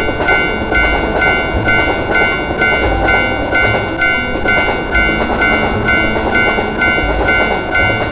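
Japanese railroad crossing (fumikiri) warning bell ringing in a fast, even two-tone ding over a train passing, whose rumble carries regular low thuds about once a second.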